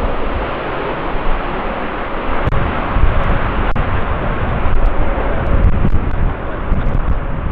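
Boeing 787-8 Dreamliner's jet engines running as the airliner lands or takes off, a steady rushing noise with a deep rumble.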